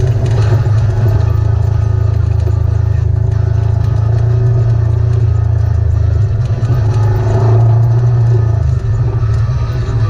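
Off-road vehicle's engine running steadily as it drives along a gravel track, with a deep continuous rumble and a short dip in level near the end.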